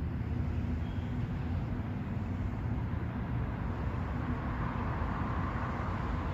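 Low, steady rumble of trams and street traffic. A rushing sound swells up from about four seconds in as another tram draws nearer.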